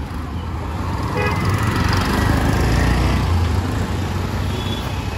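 Motor vehicle engine passing close by on a street, its engine noise and road rush swelling about two seconds in and then easing off.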